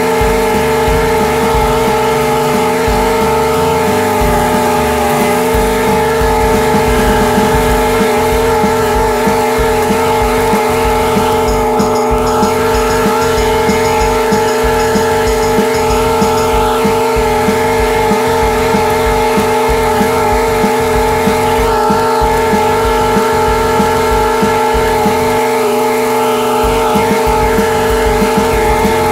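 Commercial lawn mower's engine running at a steady, unchanging speed, with the blades cutting grass, heard close up from on the mower.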